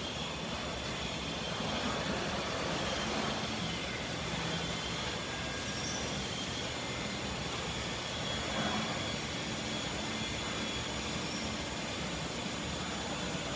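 Busellato Optima CNC router running, its head travelling along the bed: a steady mechanical noise with a high whine and a lower hum. Two brief high hisses come about five and a half and eleven seconds in.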